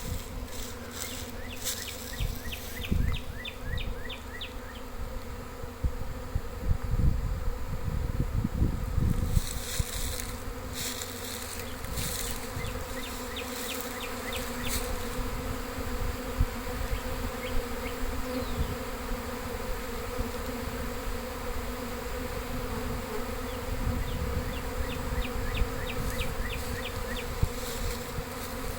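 Honeybee swarm buzzing in a dense steady drone as the bees move into a hive box. Short runs of rapid high ticking come and go, and there are some low rumbles in the first ten seconds or so.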